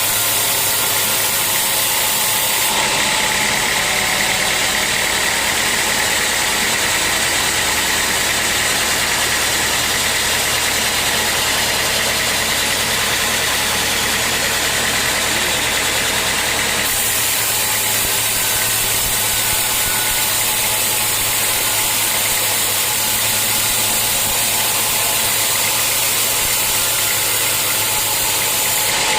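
Sawmill machinery running steadily: a motor hum under a loud, even hiss, changing in tone about three seconds in and again around seventeen seconds.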